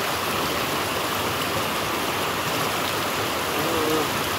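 Steady, even rushing noise, with a short wavering pitched sound near the end.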